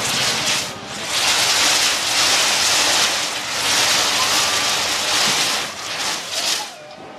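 Many fireworks rockets launching and flying in continuous volleys: a dense rushing hiss that swells and eases in surges, with a brief lull about a second in and another near the end.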